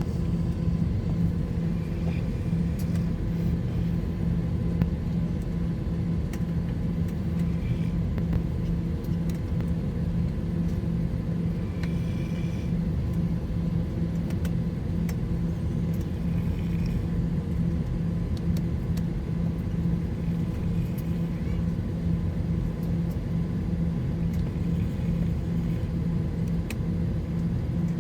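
Steady low hum and rumble inside an Airbus A321 passenger cabin, with faint voices now and then.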